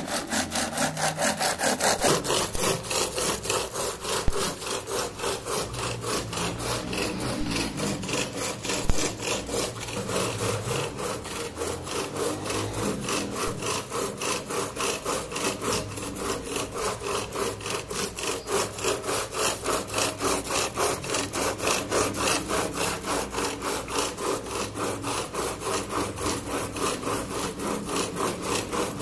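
Traditional rope-pulled curd churn (bilona): a wooden churning stick is twirled back and forth in a clay pot of curd, turning against its wooden holder stroke after stroke in a steady, quick rhythm as the curd is churned into butter.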